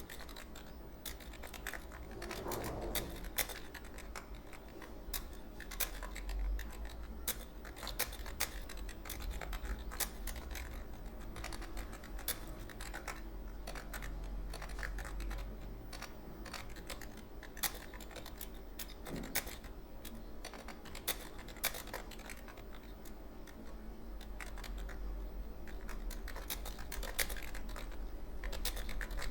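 Rapid typing on a computer keyboard: quick, irregular key clicks, several a second, over a low steady hum.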